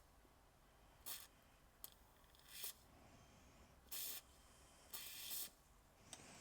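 An aerosol can of CRC penetrating spray hissing through its thin extension nozzle in four short squirts, the last about half a second long.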